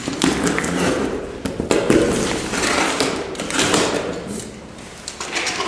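A box cutter slitting the packing tape along a cardboard box, then the tape being pulled off the lid: a run of scraping noises with a few short knocks on the cardboard.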